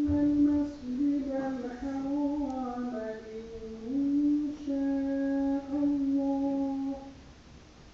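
Quran recitation: a single high voice chanting Arabic verses in long, held melodic notes with slow glides and steps between pitches, stopping about seven seconds in.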